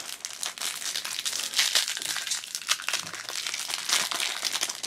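Clear plastic wrapper crinkling as it is peeled off a collector coin by hand: a dense, continuous crackle.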